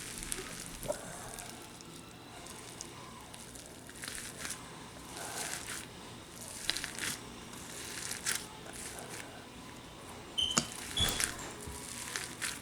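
Slime packed with small styrofoam beads being pressed and squished by fingers, giving irregular crackling and crinkling, with a louder cluster of crackles near the end.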